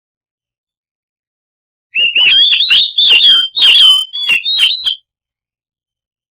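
Oriental magpie-robin (kacer) singing a loud, fast burst of varied whistled and harsh notes with sharp clicks, lasting about three seconds and starting about two seconds in.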